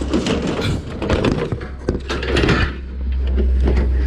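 Clattering knocks and scrapes of junk being handled at a curbside pile, then a steady low rumble that grows louder from about three seconds in.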